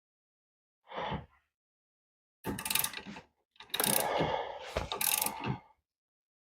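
A cheap hand ratchet clicking as its pawl runs over the gear teeth while the handle is swung back and forth. There is one short sound about a second in, then two longer runs of clicking. The ratchet has quite a bit of backlash.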